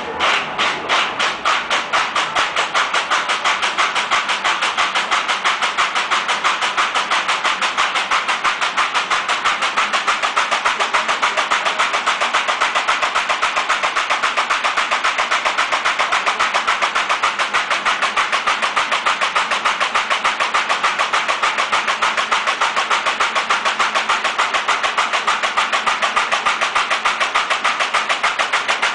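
PM-1 rewinding machine running with a fast, even rhythmic clatter, several strokes a second, holding steady throughout.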